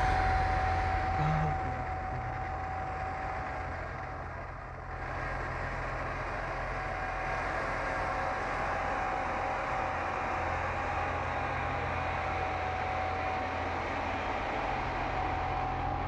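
PESA SA136 diesel railcar moving past close by, its diesel engine running with a steady low hum, a steady whine above it and the rumble of the train on the track.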